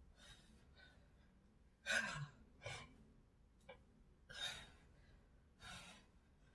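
A woman's sharp, breathy exhalations under exertion during Russian twists, about five breaths at uneven intervals, the first, about two seconds in, the loudest.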